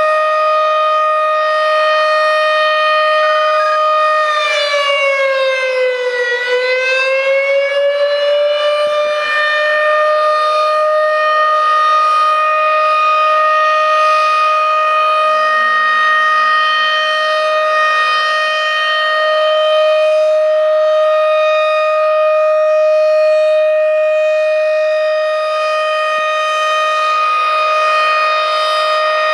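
Federal Signal Thunderbeam outdoor warning siren sounding its steady tone for a test, loud and even. About five seconds in its pitch briefly sags, then climbs back to the same steady note.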